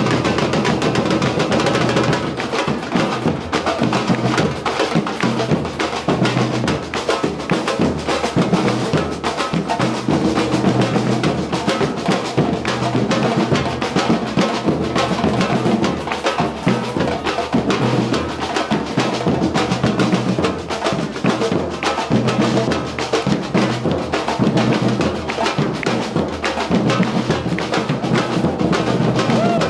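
Street drum ensemble playing continuously: large metal-shelled bass drums (surdos) beaten with mallets together with snare drums, in a dense, driving rhythm with no break.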